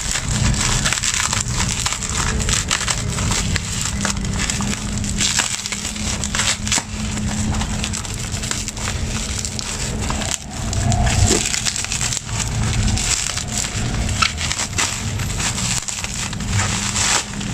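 Thin plastic courier mailer and bubble wrap crinkling and crackling in irregular bursts as a parcel is torn open and unwrapped by hand, over a steady low hum.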